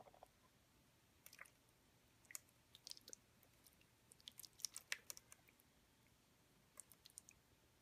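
Faint, irregular crackling clicks and small splashes of hot tea being poured from a porcelain gaiwan onto a clay tea pet and the slatted wooden tea tray. They come thickest in the middle and thin out to a few near the end.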